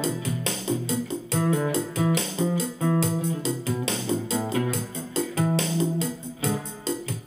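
Acoustic guitar music, the guitar played through an overdrive pedal into a small ten-watt amp set clean: plucked notes over a steady rhythm.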